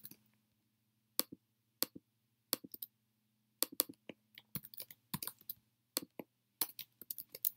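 Typing on a computer keyboard: single keystrokes at uneven intervals with pauses between, coming quicker near the end, over a faint low hum.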